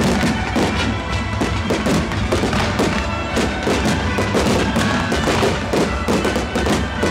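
Music playing over a fast, continuous run of fireworks bangs.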